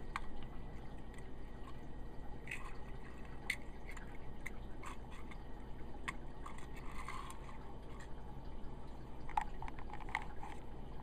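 Scattered faint clicks and taps over a steady low hum, with a small cluster of clicks near the end.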